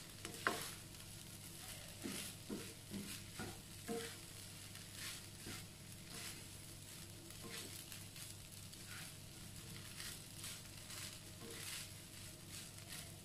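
Fried rice being stir-fried in a non-stick wok: a quiet sizzle under the repeated scrape and toss of a spatula through the rice.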